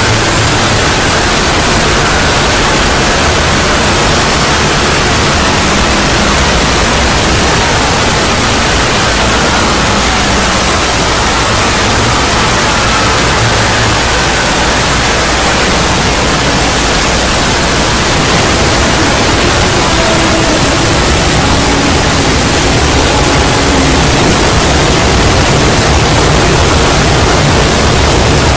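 Loud, dense wall of distorted noise that runs on without a break, only faint traces of pitch buried in it: a meme-edit sound effect made of many stacked, overdriven copies of audio.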